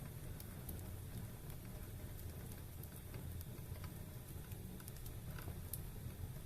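Wood fire burning in a fireplace: scattered small crackles and pops over a low, steady rumble of the flames.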